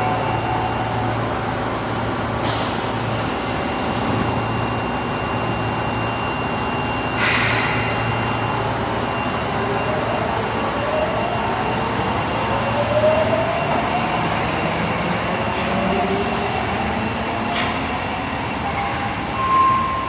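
Osaka Metro Tanimachi Line subway train running, with a steady low hum and, from about halfway through, a whine that rises in pitch in several steps. A few short hisses come through.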